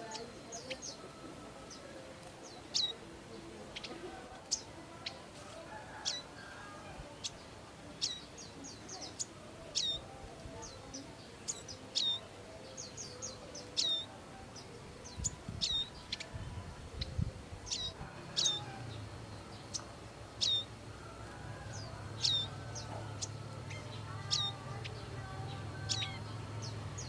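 Prinia (prenjak) calling: sharp, high chirps that each drop quickly in pitch, repeated every second or two and now and then in quick runs. A low steady hum comes in about two-thirds of the way through.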